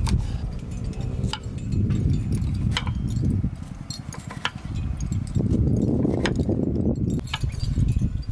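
Kitchen knife slicing through cucumber and star fruit and tapping down on a wooden cutting board, a sharp tap every second or so, over a low rumble.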